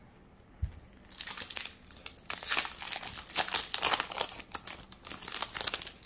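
Foil wrapper of a Yu-Gi-Oh! booster pack crinkling and tearing as it is opened, a dense crackle of many small strokes starting about a second in, loudest in the middle. A soft thump comes just before it.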